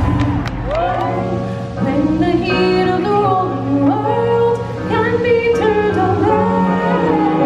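Stage show music: a woman singing a melody with long held notes over a musical backing.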